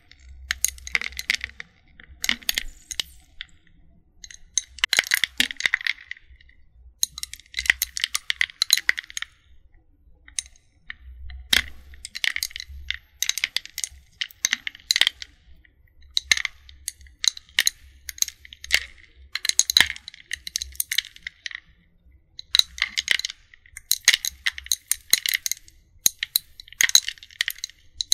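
Ice cubes crackling and popping in a bowl as they melt. The crackles come in clusters of about a second with sharp single ticks between them.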